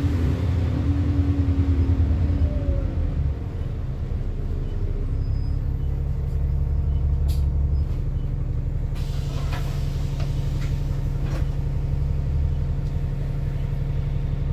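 Alexander Dennis Enviro 400 double-decker bus's Cummins six-cylinder diesel heard from inside the saloon while the bus drives, working hard with a rising whine for the first few seconds. About three and a half seconds in it eases to a steadier, quieter drone, with a few sharp clicks and rattles later on.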